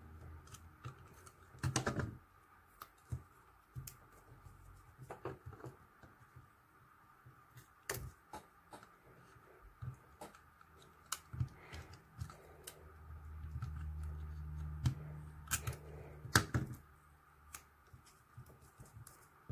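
Glue tape roller clicking and scraping as it is pressed and drawn over small paper cut-outs, with paper rustling, in irregular bursts that are loudest about two seconds in and again near the end. A low hum runs for a few seconds in the second half.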